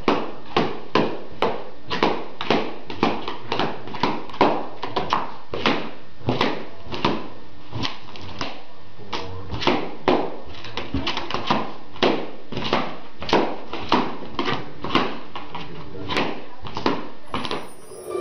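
Party balloons popping one after another, about two to three sharp pops a second, as a small dog bites through a floor full of them. The popping fades out shortly before the end.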